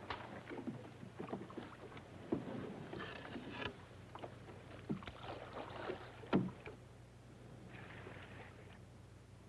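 A small wooden boat being propelled by hand: irregular water splashes and wooden knocks of the oar against the boat, the loudest knock about six seconds in.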